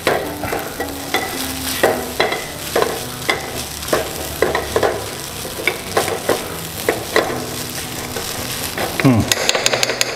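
Spatula stirring and scraping fried rice around a nonstick frying pan, about two strokes a second, over some sizzling from the hot pan just taken off the gas. About nine seconds in the strokes turn into a quick run of scrapes.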